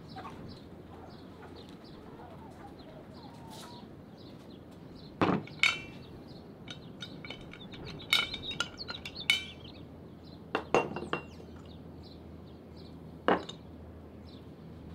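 Cookware and utensils clinking and knocking. There are a few scattered sharp strikes, some with a short metallic ring, and a quick run of them about halfway through.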